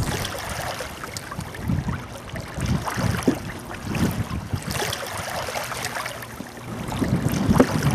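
Choppy lake water lapping and splashing against a canoe's hull as it is paddled, in uneven splashes.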